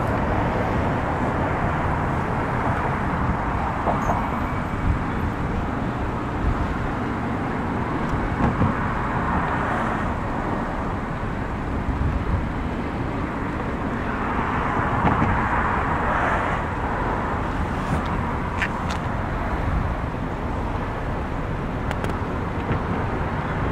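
Road traffic passing on the overpass: a steady rush of tyres and engines that swells several times as individual vehicles go by.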